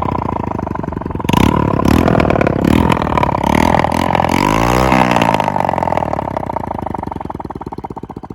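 Motorcycle engine running with its silencer removed, an open, unmuffled exhaust, blipped up and down a few times. Over the last few seconds the sound fades and the individual exhaust pops stand out. The note with the silencer off is likened to a Royal Enfield Bullet.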